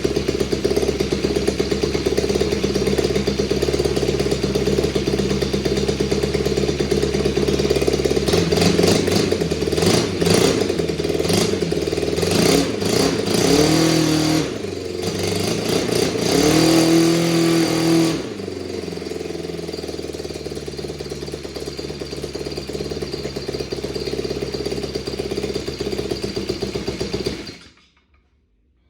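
Honda GX31 31cc four-stroke single-cylinder engine, converted for an RC plane, running steadily. It is revved up and down several times in the middle, then runs slower and cuts out suddenly near the end.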